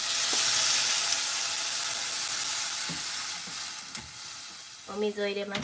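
Water poured into a hot hammered saucepan of oil-fried pork and negi, hissing and sizzling loudly as it hits, then dying down over a few seconds. A person's voice comes in near the end.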